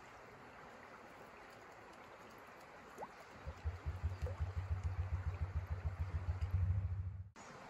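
Steady hiss of water, light rain or a stream on the pond. About three and a half seconds in, a low thrum pulsing about ten times a second starts and grows louder, then all sound cuts off abruptly near the end.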